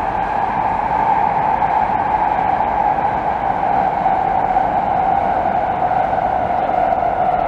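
N700A Shinkansen bullet train running across a steel truss railway bridge: a loud, steady rushing noise with a strong mid-pitched hum that neither rises nor falls.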